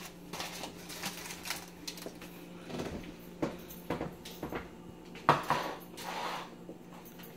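Kitchen handling noises: scattered clicks and knocks of items being moved and set down on a countertop, with one sharp knock about five seconds in, over a faint steady low hum.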